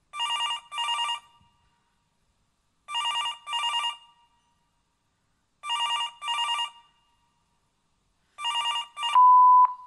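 Telephone ringing tone played as a sound effect: a trilling double ring repeated four times, about three seconds apart, with no answer. The last ring is cut short by one long steady beep, the voicemail tone.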